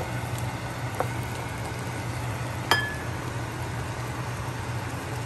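Cookware clinking against a cooking pan: a couple of small taps, then one sharper ringing clink a little under three seconds in, over a steady low hum.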